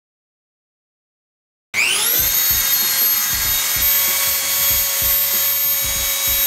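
Silence, then a little under two seconds in a robot-mounted high-speed rotary tool starts up with a rising whine that settles into a steady high pitch as its bit engraves into a wooden board.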